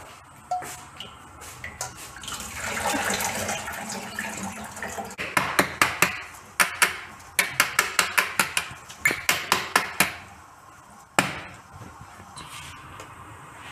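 Boiled bottle gourd cubes and their cooking water poured from a pressure cooker into a stainless steel mesh strainer, the water splashing and draining through. The steel strainer then gives a quick run of sharp metal knocks for about five seconds, with one last knock a second later, as it is jolted to shake out the water.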